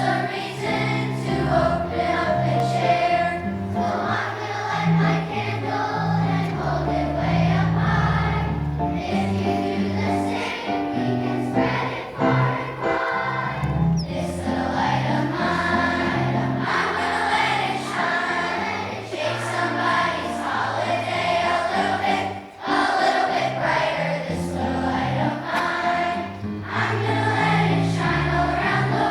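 Choral music: a choir singing over held low notes that change in steady steps.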